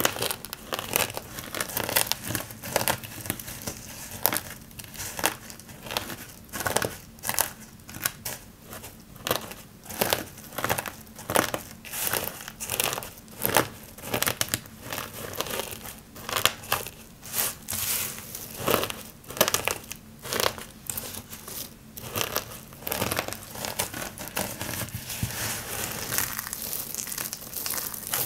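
Hands crushing and pressing a pile of dry hard-soap curls and shavings: crunchy, crinkly crackling in repeated presses, about one or two a second, turning into a more continuous crackle near the end as handfuls are squeezed.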